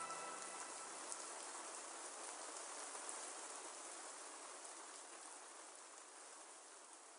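Faint rain-like hiss with scattered light patter, slowly fading out.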